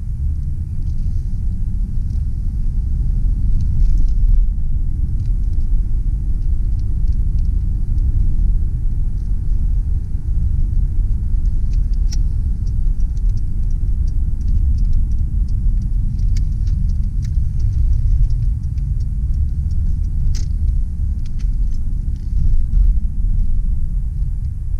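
1995 Ford Taurus driving along a road, heard from inside the cabin: a steady low rumble of road and engine noise, with scattered light clicks and ticks.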